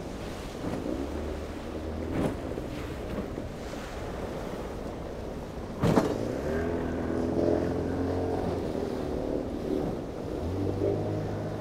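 Evinrude 50 outboard motor on a small jon boat running at speed through choppy water, its pitch wavering a little, over the rush of water and wind. A sharp knock about six seconds in, and a smaller one about two seconds in.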